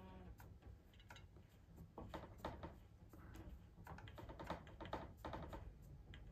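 Faint, irregular light ticks and rustling from hands wrapping foil thread around a fishing rod blank.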